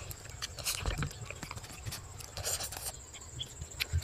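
A person eating, chewing and crunching food, with a run of small crackling clicks.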